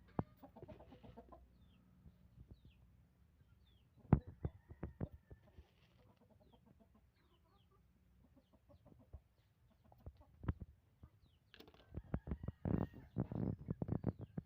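Chickens clucking and small birds chirping, with scattered knocks and taps, thickest near the end.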